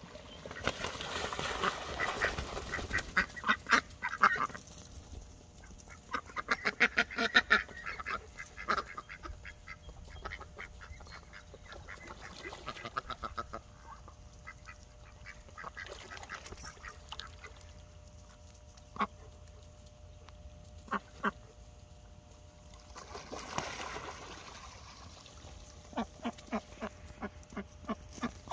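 Mallard ducks quacking in fast runs of repeated quacks, in bouts at the start, around seven seconds in and near the end, with single quacks in between.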